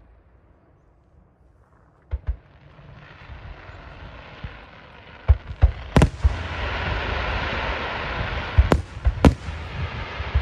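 Daytime aerial fireworks: sharp shell bursts, a pair about two seconds in and more from about five seconds on, over a hissing rush that swells through the second half.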